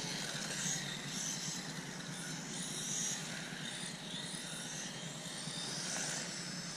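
Faint high-pitched whine of a small 1/14-scale electric RC car's motor, coming and going as it drives laps, over a steady hiss.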